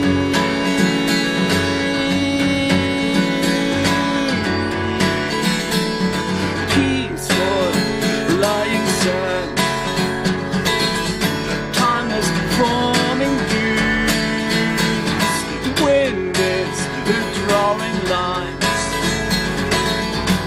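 Instrumental break of a song: strummed and plucked acoustic guitar, with a wavering melody line played over it from about a third of the way in.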